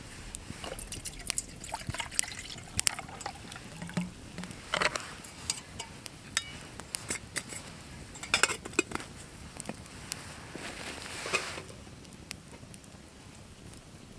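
Camp cookware being handled: scattered clinks and knocks, with some sloshing or pouring of water.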